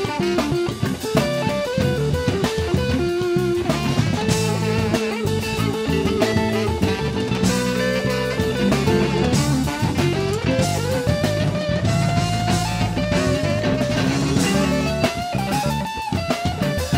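Live blues band playing: a saxophone line with held, bending notes over electric guitar, bass and drum kit.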